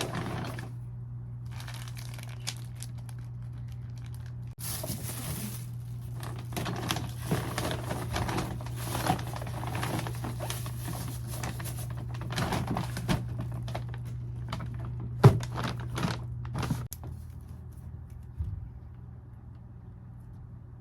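Crinkling and rustling handling sounds with several sharp knocks, over a steady low hum that stops near the end.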